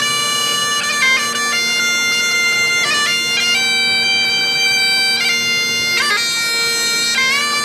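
Great Highland bagpipes played live: a melody on the chanter moving from note to note over the steady hum of the drones.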